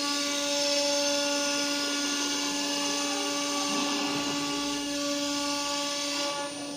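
Acctek 1325 ATC CNC router's spindle running with a steady whine as the bit cuts a wooden board, a hiss of cutting noise over it. The cutting noise fades near the end.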